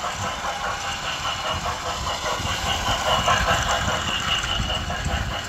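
Toy steam locomotive set running past along its plastic track: a steady clattering rattle of the small motor, gears and wheels, with a low rumble underneath.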